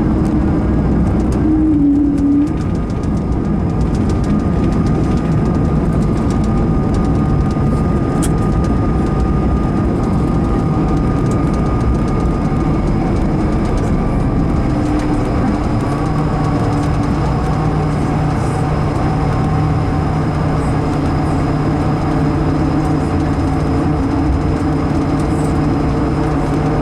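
Cabin noise of an Airbus A220-300 rolling on the ground just after landing: the wheels rumble steadily under the whine of its Pratt & Whitney PW1500G geared turbofans. A steady tone in the engine sound drops slightly in pitch about halfway through, and a lower hum comes in a little after.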